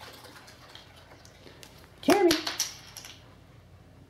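A cat meows once about two seconds in: one short call that rises in pitch and then levels off.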